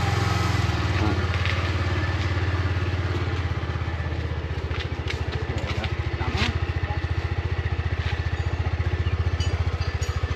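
Motor scooter engine idling steadily, with a few light clicks and knocks around the middle.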